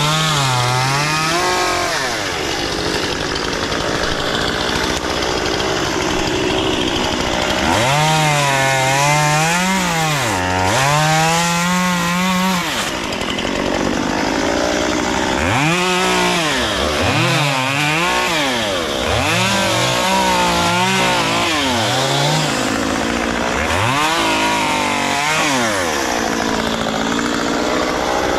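Two-stroke chainsaw cutting wood, its engine revved up and eased back down again and again through a series of cuts.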